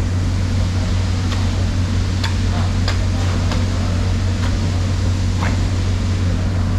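A steady low machine hum with a constant level, broken by about six short, sharp clicks or taps spread irregularly through it.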